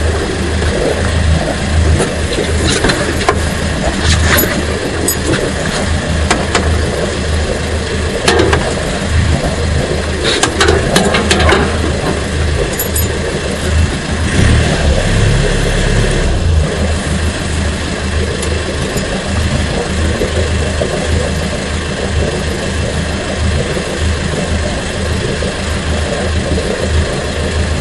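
A fishing boat's engine running steadily under a constant rushing noise, with a few light knocks and clatters from handling on deck.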